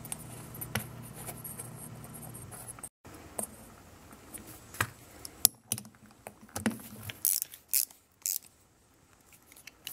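Light metal clicks, taps and scrapes of a lawn mower carburetor's float bowl and bowl nut being handled and threaded together by hand. The clicks are scattered and come more often in the second half.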